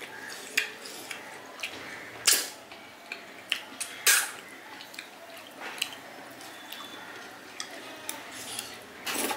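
A person eating: wet chewing and mouth smacks in short, irregular clicks, with two louder smacks about two and four seconds in.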